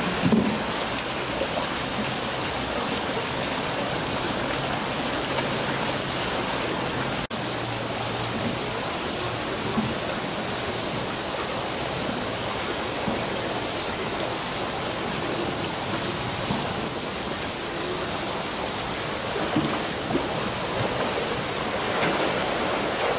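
A steady rush of moving water, with a polar bear splashing as it swims, loudest right at the start and again near the end.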